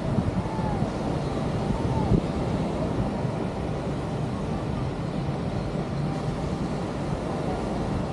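Steady rush of beach surf and wind on the microphone, with faint distant voices calling in the first couple of seconds.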